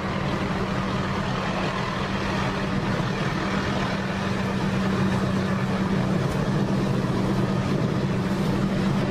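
An engine running steadily, giving an even, unchanging low hum.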